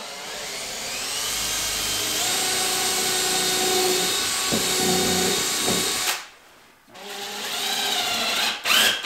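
Cordless drill running into the walnut mantel board for about six seconds, its pitch rising as it spins up, then stopping and running again near the end.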